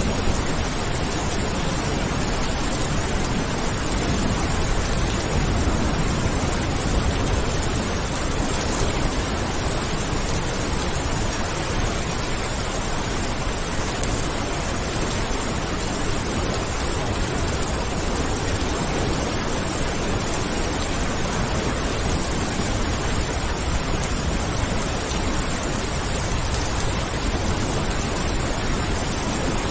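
Steady rain falling, an even unbroken hiss, with a low thunder rumble fading out about a second in.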